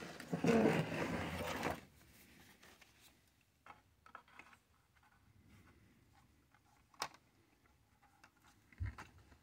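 About a second and a half of scraping as the plywood base is slid and turned on the workbench, then a few light clicks and taps from a white plastic sheet being handled and pressed over the model, with one sharper click and a soft low thump near the end.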